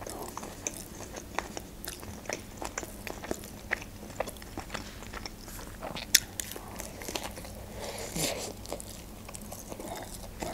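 Close-miked eating sounds: wet chewing clicks and smacks from a shawarma wrapped in lavash, with a sharper bite into the wrap about six seconds in.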